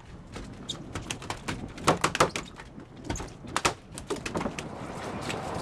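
Irregular knocks and thuds as a freshly landed tuna is handled on a boat deck with a gaff, the loudest two close together about two seconds in.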